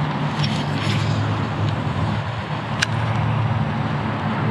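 Steady background noise with a low hum running under it, the din the angler calls "so noisy." One sharp click comes near the three-second mark.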